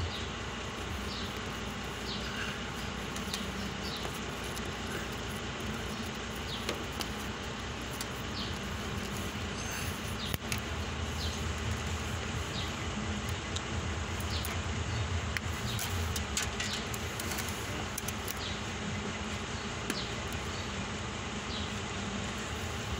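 Electrical tape being pulled off the roll and wrapped around a spliced wire, giving a few short crackling rips, over a steady low rumble. A faint short high chirp repeats about once a second throughout.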